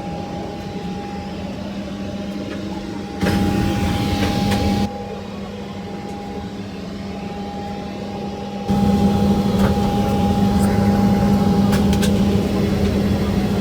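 Steady hum of a parked airliner's cabin air and ventilation, with a constant whine running through it. About three seconds in, a loud rush of noise lasts under two seconds. From about nine seconds the hum becomes louder and stays that way.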